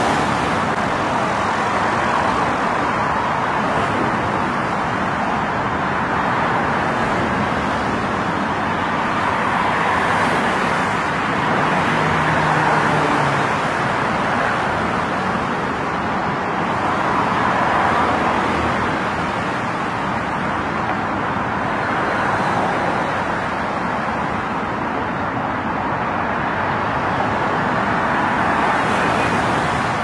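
Steady car road and traffic noise: a continuous hiss that slowly swells and eases every several seconds.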